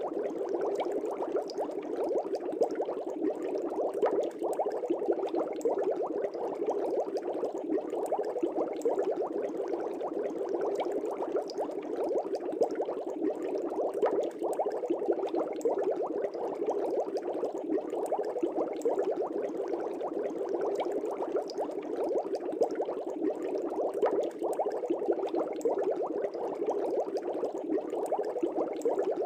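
Aquarium air bubbles bubbling steadily through water: a dense, continuous gurgle with many small pops.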